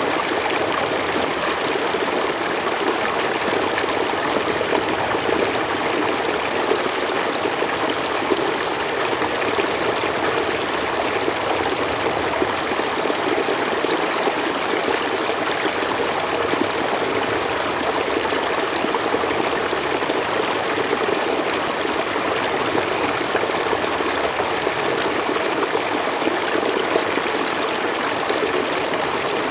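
A river or stream flowing steadily over rocks, a continuous rushing of water.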